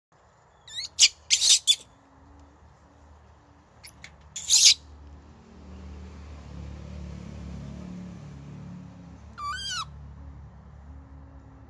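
Baby monkey crying out: a cluster of shrill screams in the first two seconds, two more about four seconds in, and a shorter wavering cry near the end.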